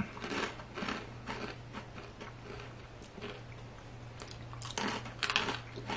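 Crunchy pretzel sticks being bitten and chewed: a run of short, irregular crunches over a faint steady hum.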